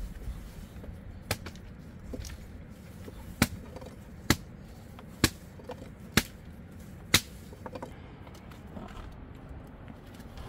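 A run of seven sharp knocks, about one a second, stopping about seven seconds in.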